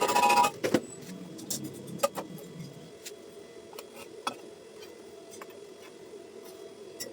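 Metal clanging and ringing briefly at the start, then scattered light metallic clicks and taps of metal being handled, over a steady low hum.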